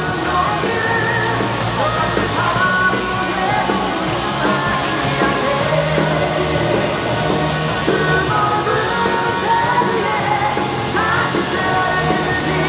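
Loud rock music with a singing voice, played for a cheerleader dance routine.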